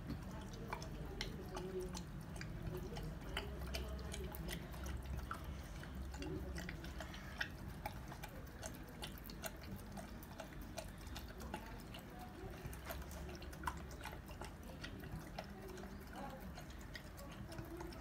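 Labrador retriever lapping curd from a stainless-steel bowl: a steady, irregular run of small wet licking and slurping clicks.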